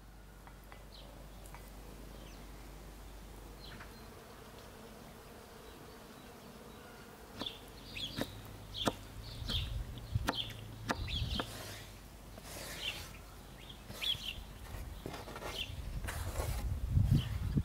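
Knife chopping a boiled carrot on a wooden cutting board: a run of sharp, uneven knocks starting about seven seconds in, after a quieter stretch of peeling. Near the end the diced pieces are scraped off the board into a bowl. Birds chirp and an insect buzzes in the background.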